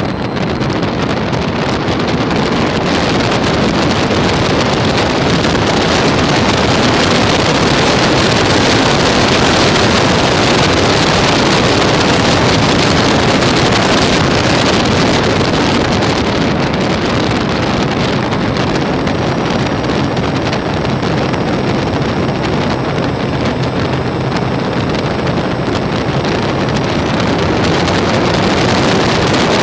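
MPX Tucan RC airplane in flight, heard from a phone camera aboard the model: a loud, steady rush of wind over the microphone mixed with the motor and propeller running.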